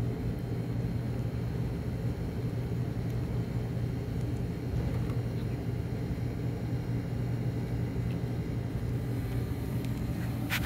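A steady low machine hum with a strong low tone and fainter higher tones above it, with a sharp click right at the end.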